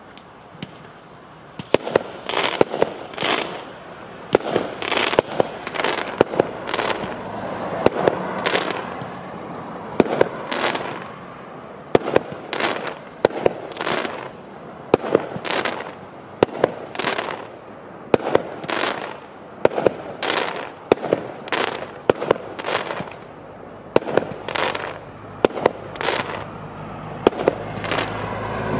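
Klasek Power! firework barrage cake firing shot after shot, about one a second, each a sharp bang followed by a crackling tail from the bursting gold stars.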